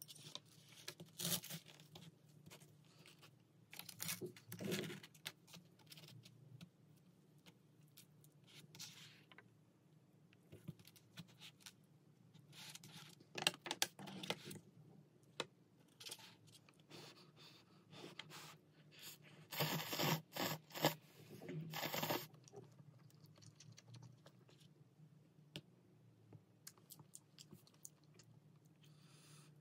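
Foil-and-paper lid of an instant cup ramen being peeled back and handled, in short scattered bursts of tearing and crinkling.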